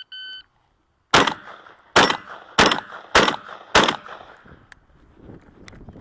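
The tail of a shot timer's start beep, then five rapid shots from a Remington VersaMax 12-gauge gas-operated semi-automatic shotgun. The first shot comes about a second in and the rest follow roughly half a second to a second apart.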